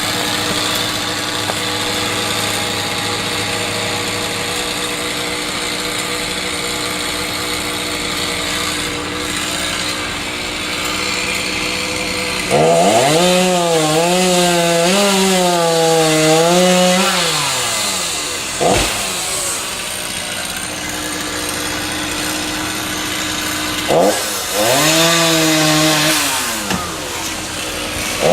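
Two-stroke chainsaw running at a low steady idle. About twelve seconds in it is revved hard for some five seconds, its pitch wavering, and it is revved again the same way near the end. A single sharp knock falls between the two runs.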